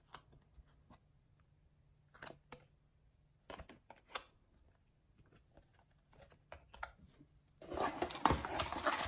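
Trading cards being handled and set down, a few faint clicks and taps, then in the last second and a half the louder crinkling of a foil card-pack wrapper being picked up and handled.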